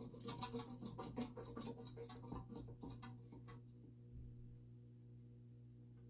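Codep Stratoline ceiling fan's stamped spinner motor running on high speed in reverse with a faint, steady hum, with a run of light clicks and rustles over the first three and a half seconds.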